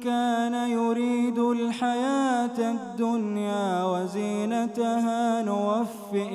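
A man reciting the Quran in the melodic tajweed style, drawing out one long, wavering, ornamented line without a break, with a short pause for breath near the end.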